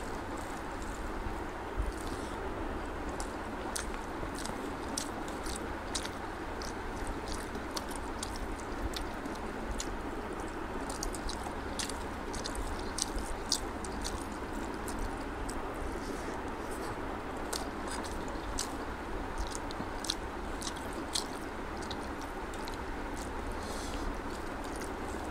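Close-up hand-eating sounds of rice and egg curry: chewing and many small wet clicks, with fingers squishing and mixing the rice, over a steady background hiss.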